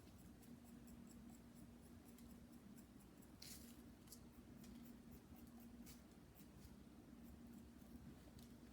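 Faint scratching and light ticks of a tool scoring texture marks into leather-hard clay, in short irregular strokes, over a low steady hum.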